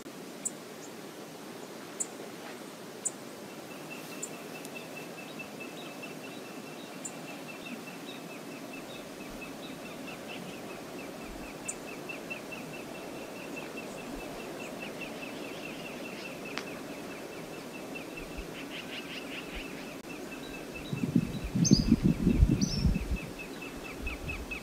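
Outdoor riverside ambience: a steady hiss of moving water and air, with a bird's fast, evenly repeated high ticking call running through most of it and a few brief high chirps. Near the end a loud low rumble lasts about two seconds.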